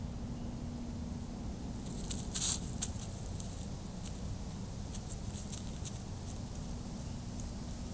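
White-tailed deer moving through grass close to the trail camera: a scattering of light ticks and rustles from about two seconds in, the loudest about two and a half seconds in. Beneath them is the camera's steady low hum and hiss.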